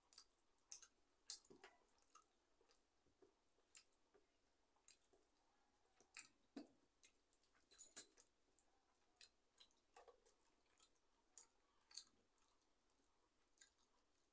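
Eating rice by hand from a steel plate: faint, irregular wet clicks and smacks of chewing and of fingers mixing the rice, the loudest a little past halfway.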